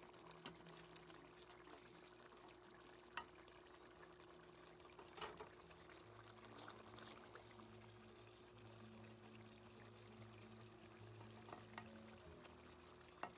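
Faint bubbling of a fish curry simmering in a metal pan, with a few light taps of a plastic spatula against the pan.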